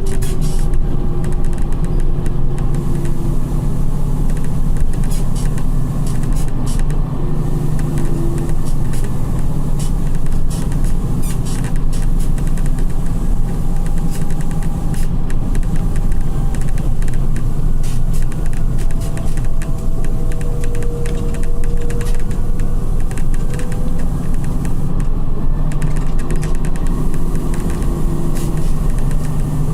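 Volkswagen 17.230 EOD coach with a ZF gearbox heard from the driver's seat while under way. The engine runs steadily, a faint whine rises and falls several times, and the body creaks and rattles in quick clicks.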